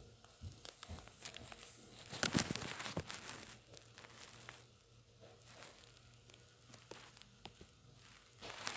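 Faint handling noise of a smartphone: scattered light taps and rustling from fingers on and around the phone near its microphone, with a short denser scraping stretch a couple of seconds in.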